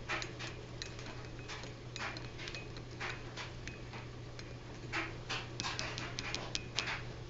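A metal spoon stirring sugar into a mug, with light irregular clinks against the sides. Short breathy puffs come in between, and a steady low hum runs underneath.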